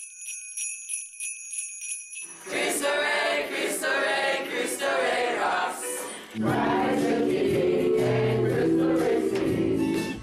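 Jingle bells shaken in a steady rhythm, about four shakes a second, opening a Christmas pop song. After about two seconds, voices start singing over the music, and a fuller backing with bass comes in about six seconds in.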